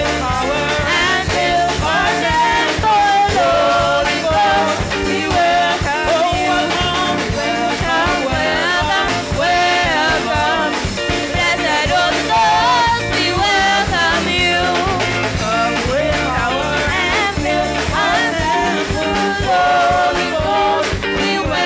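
Live gospel praise-and-worship music: several women singing together into microphones over a band with a drum kit keeping a steady beat.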